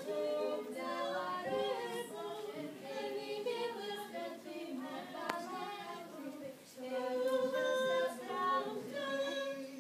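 A group of voices singing together unaccompanied in held, sustained notes, closing on a long final note near the end.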